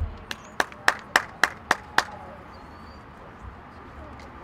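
A person clapping seven times in a quick, even rhythm, about four claps a second, loud against the quiet background.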